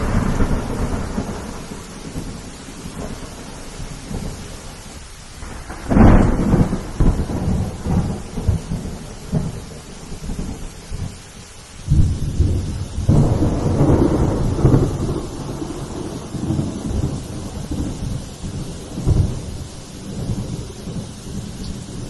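Thunderstorm: steady rain with rolling thunder. A sudden crack about six seconds in and another about twelve seconds in each trail off into a long rumble, with a smaller rumble near the end.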